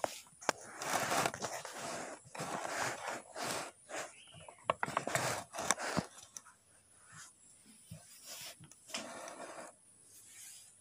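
Irregular bursts of scraping and rustling with a few sharp clicks, each from a fraction of a second to about a second long, busiest in the first half.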